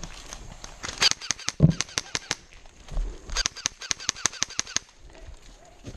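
Airsoft guns firing: an uneven string of shots from about a second in, with one low thud among them, then a rapid burst of about ten shots at roughly seven a second just past the middle.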